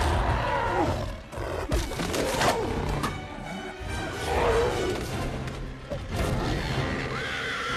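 Monster-movie fight soundtrack: a dramatic orchestral score under growls and roars from a giant gorilla and a Tyrannosaurus, with heavy impact hits about 1.7 and 2.5 seconds in.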